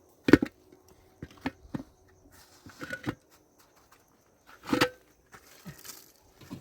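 A handful of separate knocks and thuds with quiet gaps between them: the loudest comes about a third of a second in, then lighter knocks, and a longer clatter near five seconds.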